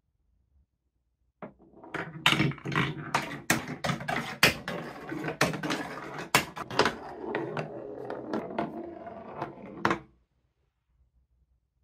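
Plastic ball rolling down a TrixTrack marble run of wooden and plastic track pieces: a continuous rolling rumble with many clicks and knocks as it runs over the wave-shaped slopes and track joints. It starts about a second and a half in and stops suddenly near the end.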